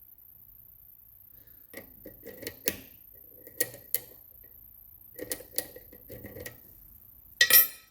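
Small hard clicks and clacks of a lock and lock-picking tools being handled, scattered over several seconds, with a louder rattle near the end.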